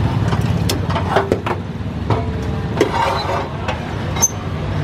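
A steel ladle clinks and scrapes against a large steel pot of chole several times, with short metallic rings, over a steady low engine hum.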